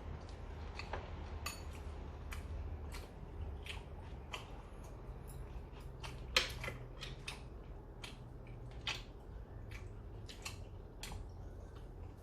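Table eating sounds: irregular sharp clicks and clinks of utensils against dishes, the loudest about six and a half seconds in, over a low steady hum.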